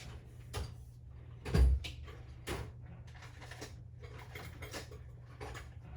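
Handling noise at a workbench: scattered light clicks and knocks, with one louder, low thump about a second and a half in, over a steady low hum.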